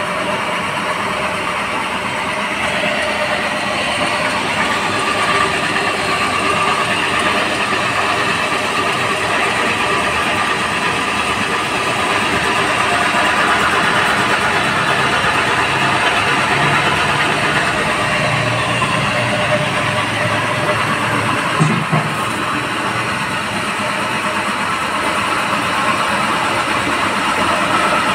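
Electric wet grinder running steadily, its motor and stones grinding idli and dosa batter with a continuous mechanical hum and rumble. There is a single brief knock about three-quarters of the way through.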